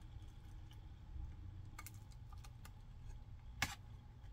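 Faint scattered clicks and ticks as a heated Samsung Galaxy phone's back cover is pried loose by hand with a plastic opening pick, with one sharper click about three and a half seconds in.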